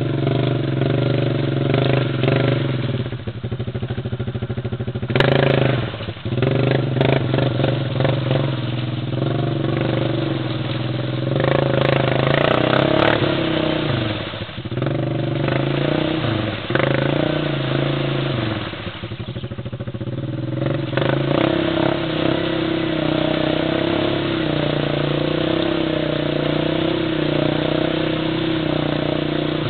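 ATV engine under heavy load in deep mud, revving hard, easing off and revving up again several times as the quad churns slowly forward through mud and water.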